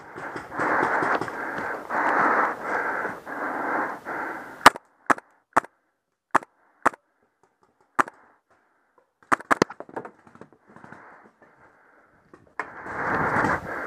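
Heavy panting close to the mic, then a RAP4 Tacamo paintball marker firing about ten single sharp shots at an uneven pace, a quick few close together near the end, then panting again.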